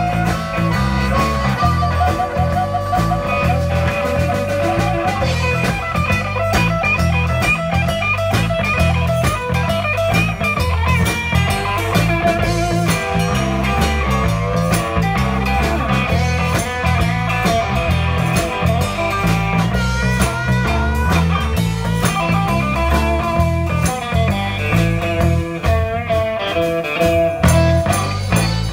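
Live blues band playing an instrumental section: electric guitars, bass guitar and drum kit keep a steady beat while blues harmonica plays bending lines over the top.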